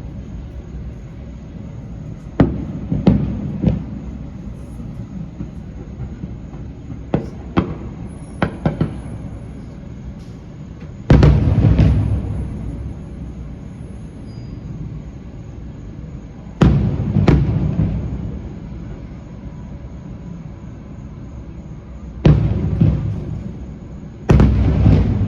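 Fireworks shells bursting: a run of sharp bangs, each trailing off in a low rumble. A few lighter pops come early and in a quick cluster about a third of the way in, then four heavier booms spaced a few seconds apart.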